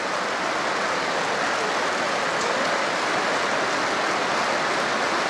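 A packed football stadium crowd applauding steadily in a sustained standing ovation.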